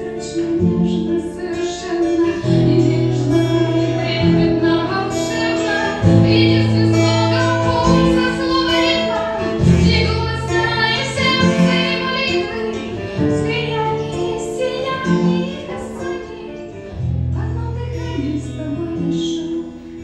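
A woman singing a Russian Christian worship song, accompanying herself on guitar, with held chords changing every second or two under the voice.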